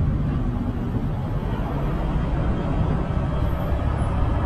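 Steady low rumble of wind on the microphone and road noise from a bike moving along a street.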